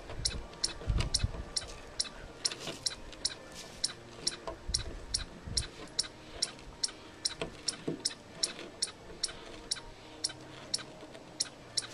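A chipmunk giving a steady run of sharp, high chip calls, about three a second, the repeated call a chipmunk makes when alarmed. Under it, low crunching and scraping from a small dog chewing and scratching at the edge of a wooden boardwalk comes and goes, strongest in the first second and a half and again around four to five seconds in.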